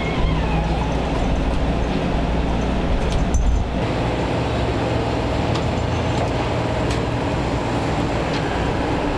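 Steady, loud mechanical rumble with a low hum, the sound of running machinery; the hum shifts in pitch and character about three and a half seconds in.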